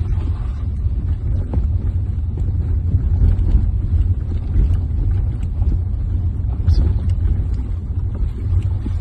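A vehicle driving over a rough, unpaved road: a steady low rumble with scattered small knocks and rattles.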